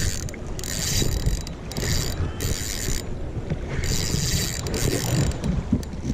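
Fishing reel being cranked, a mechanical whirring and clicking in uneven spells, with wind rumbling on the microphone.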